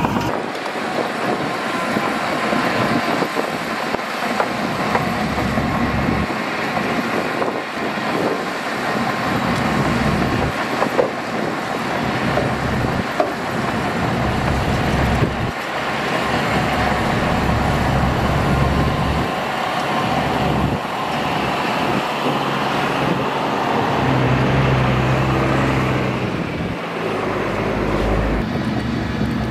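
Diesel engines of heavy earthmoving machinery running under load, the engine note rising and falling, with a couple of sharp knocks partway through.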